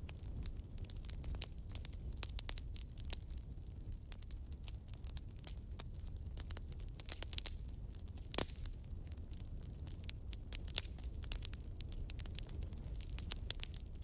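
Wood logs burning in a fireplace, crackling with irregular sharp pops over a low steady rumble. One louder pop comes about eight seconds in.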